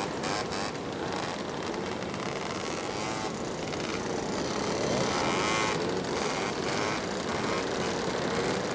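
Several two-stroke moped engines running at once as a group of mopeds rides past, their pitch rising and falling as riders rev and pass.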